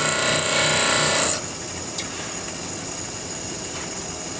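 Bench grinder wheel grinding the tip of a mild steel threading-tool blank in one continuous pass, a harsh hiss that stops suddenly about a second and a half in. After that only a quieter steady background noise remains, with a single click.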